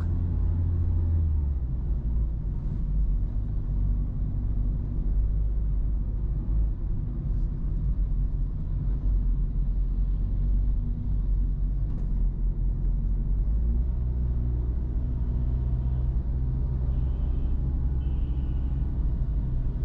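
Motorbike engine running while riding along a road, with a steady low rumble. The engine note drops a little about a second and a half in and rises again about two-thirds of the way through.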